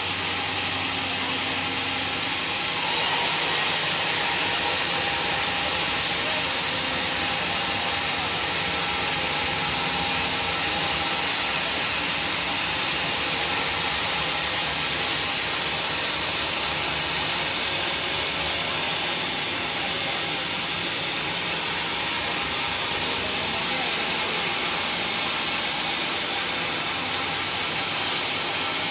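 Woodworking machinery running steadily, a continuous hissing machine noise that grows brighter about three seconds in.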